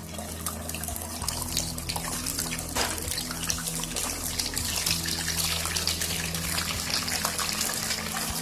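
Whole spices sizzling and crackling in hot mustard oil in a frying pan, the crackle growing denser after about a second, over a steady low hum.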